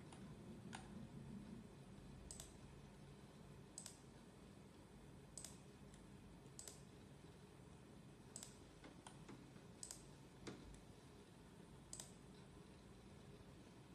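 Faint single computer mouse clicks, about one every one to two seconds, over quiet room tone.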